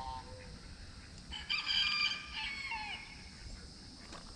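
A rooster crowing once, about a second and a half long, starting about a second and a half in and trailing off at the end.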